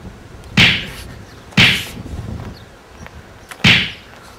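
Three sharp swishing whooshes, the first two a second apart and the third about two seconds later, each dying away within half a second.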